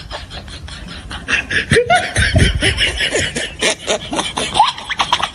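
Snickering laughter used as a comedy sound effect, in quick short bursts that get louder about one and a half seconds in.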